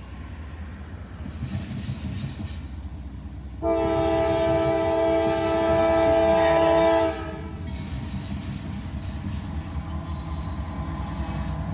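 A CSX CM44AC diesel locomotive sounds its horn in one long blast of several notes at once, lasting about three and a half seconds from a little over three seconds in. Under it runs the steady low rumble of the passing train.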